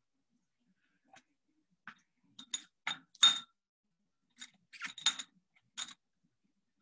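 Steel dissecting forceps clicking and clinking against a metal dissection tray. It comes as two clusters of short, sharp metallic ticks, the loudest a little over three seconds in.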